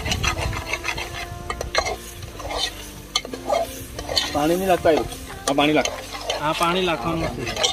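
Metal ladle stirring and scraping a thick meat curry in an aluminium pot on a wood fire, with a light sizzle from the simmering pot.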